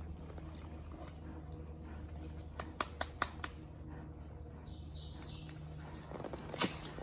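Faint footfalls of a horse walking a woodland dirt trail, with a quick run of sharp hoof knocks about two and a half to three and a half seconds in. A bird gives a short rising call about five seconds in, over a low steady hum.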